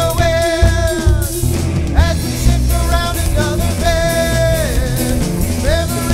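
A rock band's recording plays: drums and bass keep a steady beat under electric guitar, with held notes that slide up in pitch about two seconds in and again near the end.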